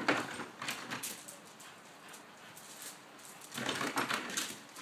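Boxer dog making two short noisy bursts of sound, about a second each, one at the start and one near the end.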